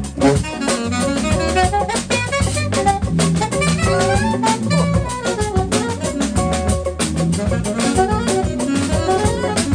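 Live jazz band playing: a saxophone playing quick runs of notes over drum kit, electric guitar and keyboard.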